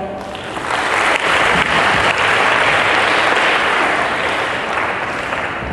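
Audience applauding, building up about half a second in and dying down near the end.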